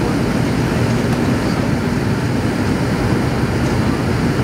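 Steady cabin noise inside a McDonnell Douglas MD-82 climbing out after takeoff: its rear-mounted Pratt & Whitney JT8D-200-series turbofans at climb power together with air rushing past the fuselage, a loud, even rumble heaviest in the low range.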